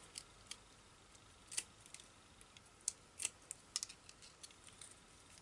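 Paper being handled: a few faint, scattered crisp clicks and rustles as a paper greeting banner backed with foam adhesive dots is fitted and pressed onto a card.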